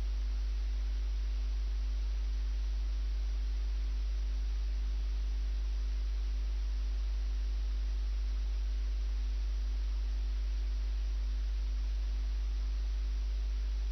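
Steady electrical mains hum at about 50 Hz with its overtones and a faint hiss, unchanging throughout.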